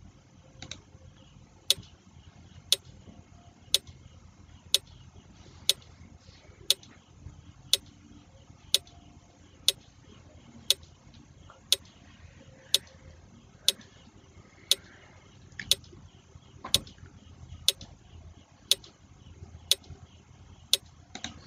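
Quiz countdown-timer sound effect ticking once a second, about twenty sharp ticks, counting off the 20 seconds given to answer a question.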